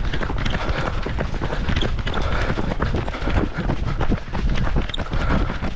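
A runner's footsteps on wet asphalt, heard from a camera worn by the runner, so every stride jolts the microphone, over a low rumble of wind on the microphone.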